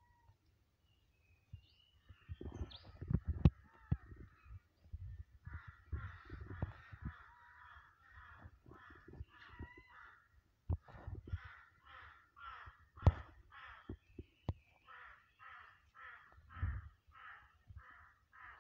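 Crows cawing over and over, settling into a steady series of about two to three caws a second in the second half. A couple of sharp knocks stand out louder than the calls.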